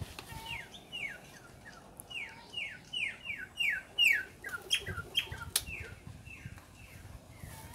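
Campo troupial (sofrê) singing: a run of clear whistled notes, each sliding downward, about three a second, swelling in the middle and fading near the end. A single sharp click comes about five and a half seconds in.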